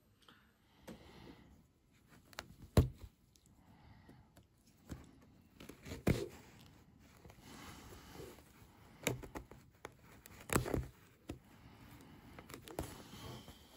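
Seam ripper ripping out the stitches that hold a proggy mat to a rug frame's webbing: soft rustling of cloth, broken by a handful of sharp snaps at irregular intervals, the loudest about three seconds in.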